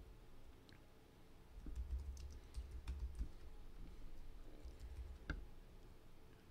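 Computer keyboard typing: faint, scattered keystrokes as a word is typed, then backspaced to fix a misspelling.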